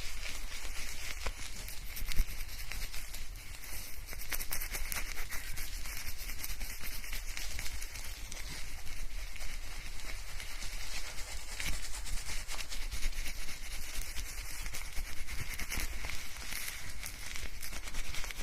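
Shampoo lather being scrubbed through hair: a continuous wet, fine crackling and rustling of foam. It is recorded binaurally, close to the ears.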